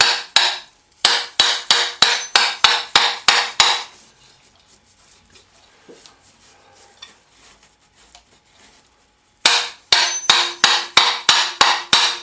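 Hammer tapping rapidly and repeatedly on a ceiling-fan motor to knock its seized rotor and shaft loose, about five strikes a second, each with a metallic ring. The strikes stop for a few seconds of faint handling and then start again near the end.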